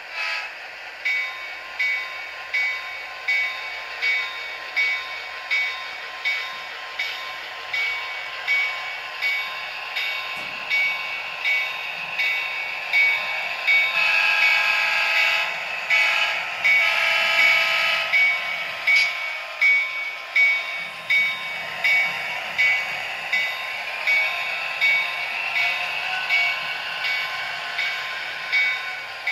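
HO-scale SOO Line MP15AC model's sound decoder through its small speaker: the locomotive bell ringing steadily about once a second, with three horn blasts about halfway through. Under it a faint diesel engine sound that strengthens near the end as the model is eased into a higher notch.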